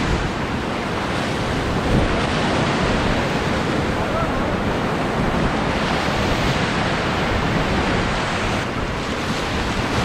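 Whitewater rapids rushing around an inflatable raft, a dense steady wash of water, with wind buffeting the microphone. A short thump about two seconds in.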